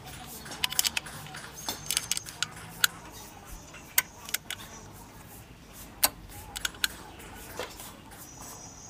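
Irregular sharp metallic clicks and clinks of an Allen key being handled and fitted into a bolt on a motorcycle's swingarm.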